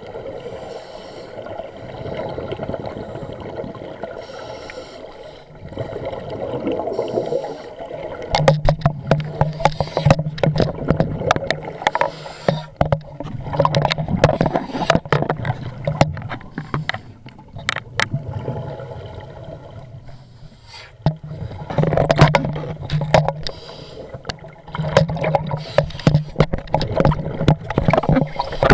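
Scuba diver's exhaled regulator bubbles rumbling in bursts of a few seconds, repeating about every five seconds from about a third of the way in. Many knocks and scrapes come from the action camera's waterproof case being handled, and all of it is recorded underwater through the case.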